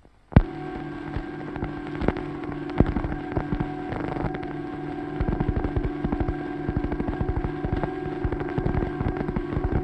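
A train running: a steady mechanical drone with rapid rhythmic clatter that grows busier about halfway through. It opens with a sudden loud bang.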